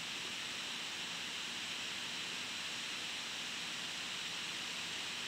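Steady hiss with no other sound: the noise floor of a laptop's built-in microphone, strongest in the upper-middle range.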